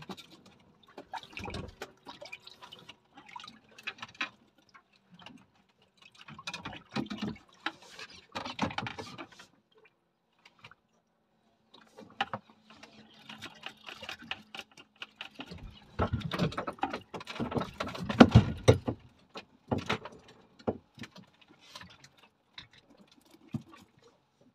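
Water splashing and lapping against a small boat's hull in uneven bursts, with scattered knocks and clicks; the loudest run of splashing comes about two-thirds of the way through.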